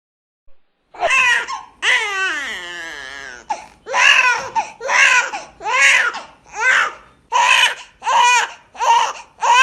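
Baby crying: starting about a second in, one long falling wail, then a run of short, loud cries about one a second.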